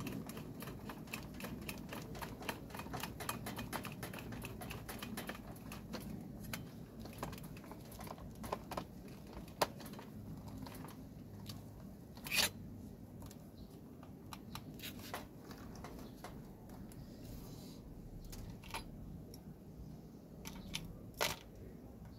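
A hand screwdriver turning screws in the plastic housing of an opened Panasonic IH rice cooker, a quick run of small clicks several a second. The clicks then thin out, with a few louder knocks about halfway and near the end.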